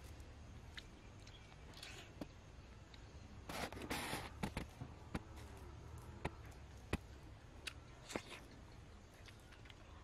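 Someone chewing soft, juicy dragon fruit flesh: scattered small wet mouth clicks, with a louder noisy stretch of about a second a little past three and a half seconds in.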